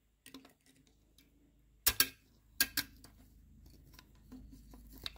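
Small metal clicks and taps of needle-nose pliers, a spring and steel levers as a governor spring is hooked onto the actuator lever of a diesel injection pump and the top lever assembly is set back in place. The loudest are four sharp clicks in the middle.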